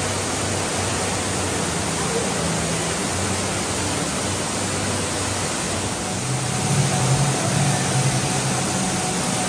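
Ruby Falls, an underground cave waterfall, pouring into its pool: a steady rush of falling water.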